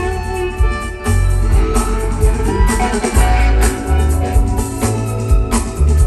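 Live band music: electric guitar, fiddle, upright bass and drum kit playing together, with a steady drum beat and a heavy bass line.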